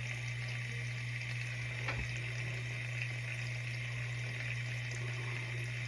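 Steady background noise: an even hiss over a constant low hum, with one faint tap about two seconds in.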